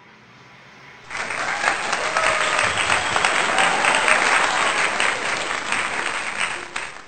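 Crowd applause, faint for about the first second, then loud and steady, cutting off suddenly at the end.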